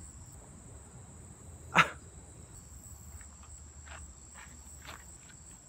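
Crickets trilling steadily on one high note. About two seconds in comes a single sharp scuff, and a few fainter footsteps on a gravel path follow later.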